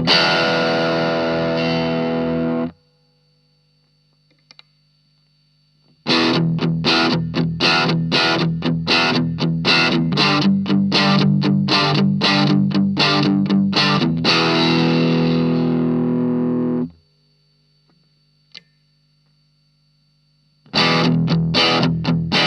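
Fender Stratocaster electric guitar through an Ibanez Tube Screamer Mini overdrive pedal into a Marshall MG15 amp, playing fast, evenly picked overdriven chords. Twice a phrase ends on a held, ringing chord that is cut off sharply. A few seconds of low amp hum follow before the playing starts again.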